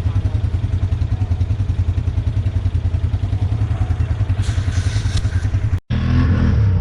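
ATV engine running at a steady pace with a fast, even pulse. Near the end it cuts out for an instant, then picks up again slightly louder.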